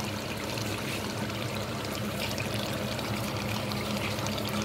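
Deer meat curry sizzling steadily in a pot, its cooking water boiled off so the meat fries in thick oily masala, with a steady low hum beneath.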